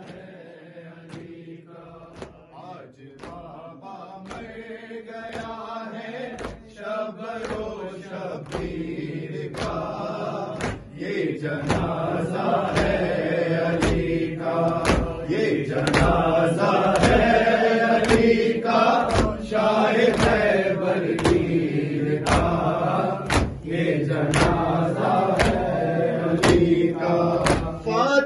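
Men chanting a noha, the Shia lament, led by one male voice over a microphone, with rhythmic chest-beating (matam) hand slaps about once a second. It grows louder over the first fifteen seconds or so.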